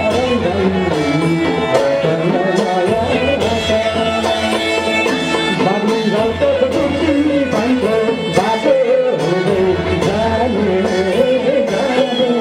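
Live Nepali panche baja folk music: drums under a wavering melody line, with a man singing into a microphone.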